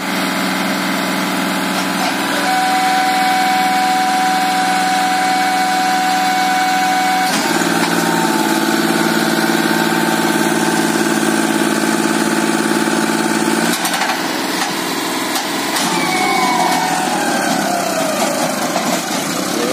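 John Deere 5055 tractor's diesel engine running under heavy load as it pulls a loaded sugarcane trolley, hard enough to lift the front wheels off the ground. The engine note changes about seven seconds in and again near fourteen seconds.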